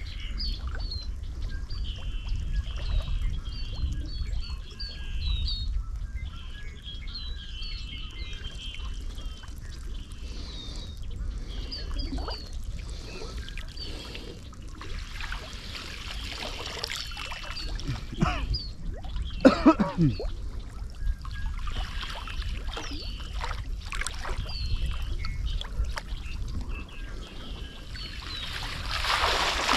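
Water trickling and splashing around a small boat, louder for a few seconds about halfway through and again at the very end. Small birds chirp over it in the first half.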